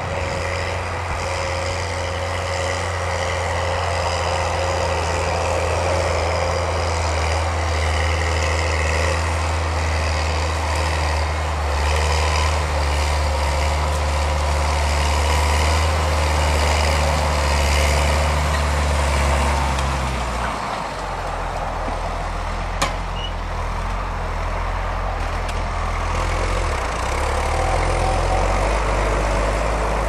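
New Holland T7060 tractor's six-cylinder diesel engine running steadily under load while pulling a reversible plough. About twenty seconds in the engine note drops and changes, and a single sharp click follows a few seconds later.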